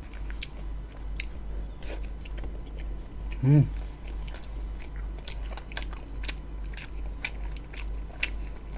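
Close-up chewing of a mouthful of roti John, a soft bun filled with minced beef and sauce: irregular mouth clicks throughout, with one brief vocal sound about three and a half seconds in.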